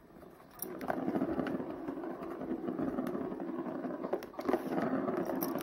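Plastic ball rolling around the plastic ring track of a cat scratcher toy: a steady rumble that starts about half a second in, with a few sharp clicks.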